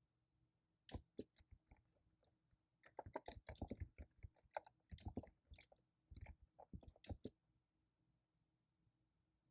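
Faint keyboard typing in irregular bursts of clicks: a short run about a second in, a busier stretch around three to four seconds in, then scattered keystrokes that stop about seven seconds in.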